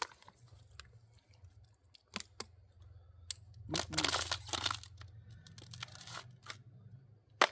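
Handling and rustling noises: scattered clicks, with a louder rustling burst about four seconds in, over a low steady hum.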